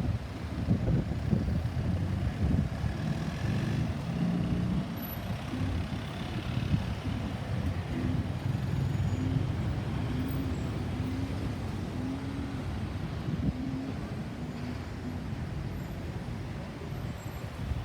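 Road traffic: engines and tyre noise of passing heavy vehicles, with sharp loud moments in the first few seconds. In the middle a short low tone repeats about once every two-thirds of a second for several seconds.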